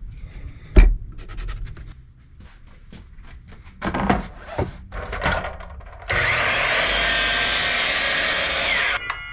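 Wood being handled with a sharp knock about a second in, then a power tool cutting or sanding wood, running steadily for about three seconds before stopping abruptly.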